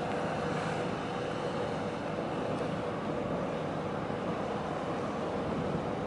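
Steady drone of a ship's engine, mixed with wind and water noise.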